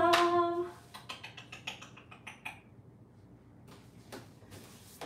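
Typing on a laptop keyboard: a quick run of keystroke clicks, a pause, then a few more keystrokes near the end. A short steady hum comes first, in the opening second.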